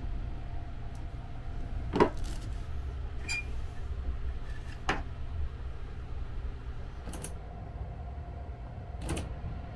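Four short, sharp plastic clicks and knocks as sleeper-compartment fittings are handled: a plastic wastebasket, a small pull-out drawer and the slide control of a wall air vent. The loudest click comes about two seconds in. A steady low hum runs underneath.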